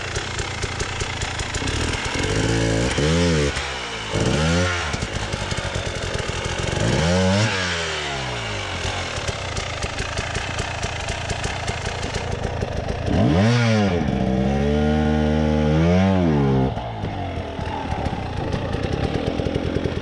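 Dirt bike engine idling, then revved up and let back down in about five throttle bursts, the two longest about two thirds of the way through, as the bike is worked out of a steep rut.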